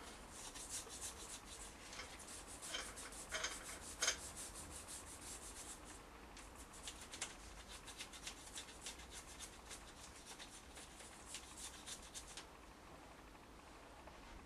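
Faint, quick rubbing strokes by hand on a motorcycle engine part as a spot he is unhappy with is worked over, stopping about twelve and a half seconds in.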